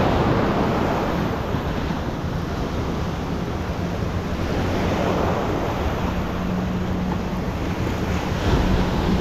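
Pacific surf breaking and washing in as foam through the shallows, a steady rushing of water.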